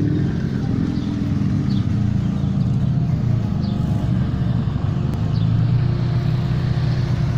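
Low, steady engine rumble from modified cars rolling slowly past in a line.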